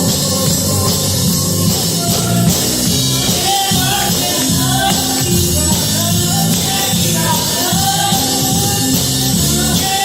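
Music with a band and singing: bass, drums and a voice carrying a melody, at a steady loud level.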